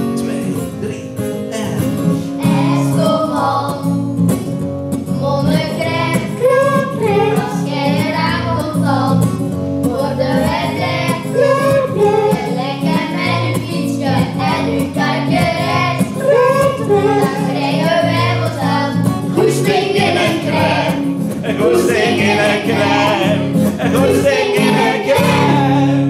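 A group of children singing a song together through microphones, over steady guitar chords.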